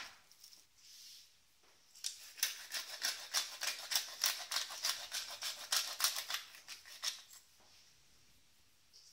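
Hand-held pepper mill grinding peppercorns: a dry, rapid crackle of clicks in quick pulses as the mill is twisted, lasting about five seconds and stopping about seven seconds in.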